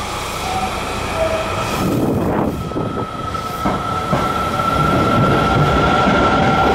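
Midosuji Line subway train moving along the platform: a steady high squeal over a rumble that grows louder in the second half.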